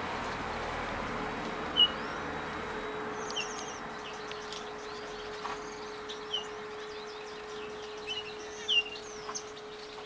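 Small aviary finches giving short, sharp chirps and calls scattered through, the loudest about two seconds in and another near the end, over a faint steady hum.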